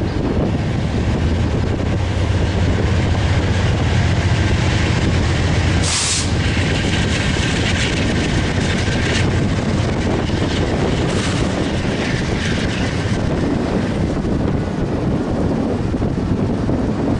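Freight train rolling past close by: a steady rumble of rail cars on the track, with a low engine drone through the first six seconds. A few brief, harsher bursts of noise come and go in the middle.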